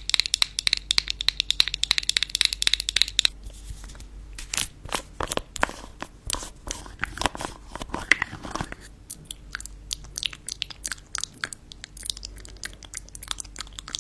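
Close-miked crisp crunching and clicking from ASMR triggers. It opens with a fast run of small clicks, turns to slower, coarser crunches from about four seconds in, and settles into a fine, dense crackle about nine seconds in.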